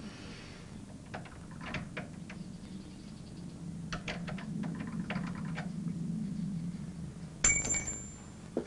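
Small metallic clicks and scrapes of someone working at a door lock, over a low steady hum; near the end a sharper metal clink rings briefly.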